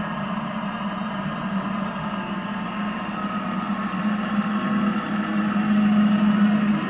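Large stadium crowd cheering and applauding, heard through a television's speaker, growing louder about four seconds in.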